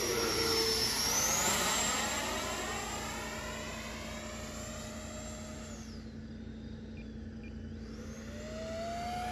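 80mm electric ducted fan of an FMS F-86 Sabre RC jet whining in flight as the jet makes a pass. It is loudest in the first two seconds, fades through the middle and builds again near the end as the jet comes back around.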